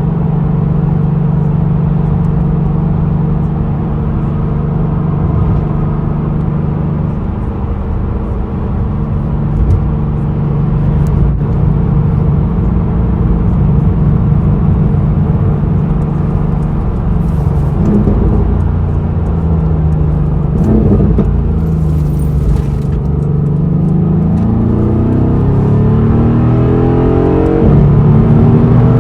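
Mercedes-AMG car engine idling steadily, then revved several times in the second half, its pitch rising and falling, with one longer climb in revs near the end.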